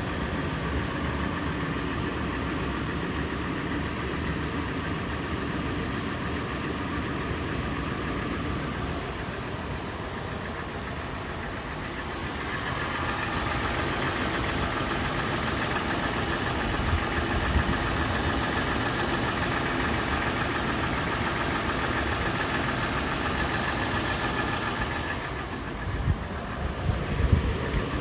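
Toyota FJ engine idling after a warm start with a steady clattering, tapping sound from the engine, which the owner hears as a clatter on initial warm-up that later turns into a slower, sharper metallic tapping or knocking. About halfway through the sound turns brighter and louder, and a few sharp knocks come near the end.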